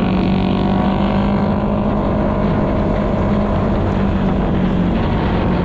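Honda scooter's engine running at a steady cruising speed, a constant drone that neither rises nor falls, with wind rushing over the handlebar-mounted camera's microphone.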